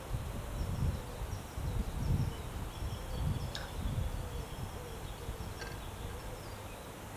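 Wind buffeting the microphone in uneven low gusts, strongest for the first four seconds or so and then easing. Under it runs a faint wavering hum, with a couple of brief high chirps.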